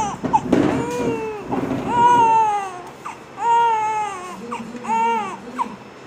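Newborn baby crying in a series of wails, each about half a second to a second long and arching up and down in pitch, with short high catches of breath between them. There is a brief rustling noise in the first second or so.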